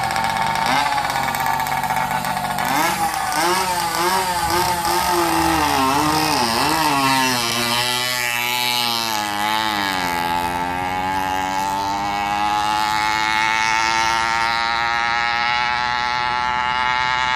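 Two-stroke motorized-bicycle engine built with a chainsaw cylinder, revving up and down unevenly for several seconds, dipping, then climbing steadily in pitch from about ten seconds in as the bike accelerates.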